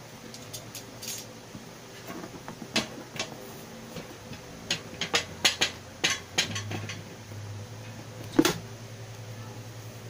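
Hands handling a stiff cardboard box: a run of sharp taps and knocks against the cardboard, then one louder thump near the end as the outer box is lifted off the projector.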